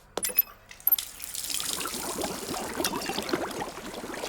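A few sharp clicks, then from about a second in, running, trickling water as a cartoon sound effect.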